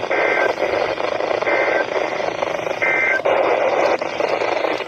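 NOAA Weather Radio static with three short, evenly spaced bursts of EAS digital data tones, the end-of-message code that closes the weekly test.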